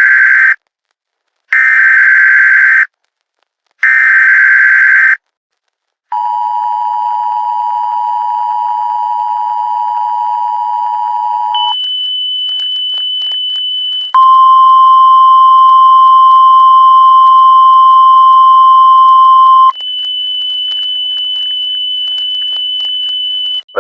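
Emergency Alert System tones: the SAME digital header rasps out as three short data bursts, then the two-tone attention signal sounds steadily for about five seconds. A high steady tone follows, joined midway by a louder single-pitch alert tone for about five seconds, and the high tone carries on alone near the end.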